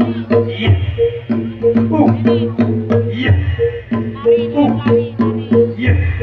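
Live kuda lumping dance accompaniment: hand drums beating a busy rhythm over a regular pattern of short pitched percussion notes on two alternating pitches, with a deep low stroke about every two and a half seconds.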